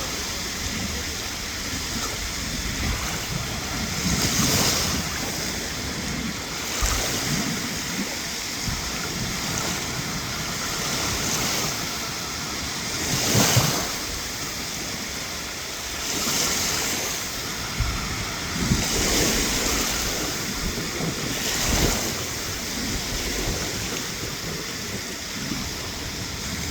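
Surf on a beach: a steady wash of waves, swelling as a wave breaks every few seconds, with wind buffeting the microphone.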